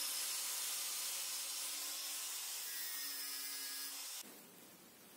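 Angle grinder running, its disc grinding a steel bolt just below the head: a steady hissing grind over the motor's hum. It cuts off abruptly about four seconds in.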